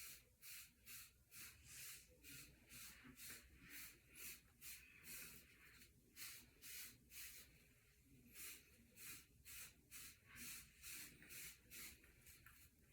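Faint, steady brush strokes through short hair with a wave brush's bristles, about two scratchy strokes a second with a brief pause partway through.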